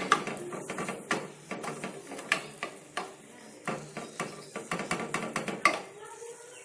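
Stirring in a container of dye, with feathers soaking in it: irregular clicks and knocks of the stirrer against the container, the loudest at the very start and near the end.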